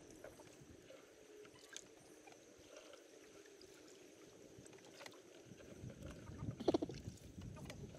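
Faint sloshing and lapping of shallow water, briefly louder about two-thirds of the way in.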